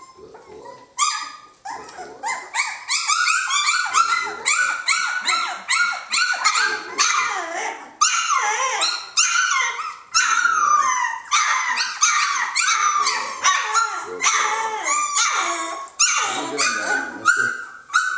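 Three-week-old Jamthund (Swedish Elkhound) puppies whining and yelping: a near-continuous run of short, high-pitched cries that rise and fall, a few each second.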